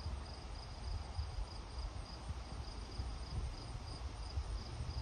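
Wind gusting on the microphone with a low rumble, faint leaf rustle above it, and an insect chirping steadily in a pulse of about two a second.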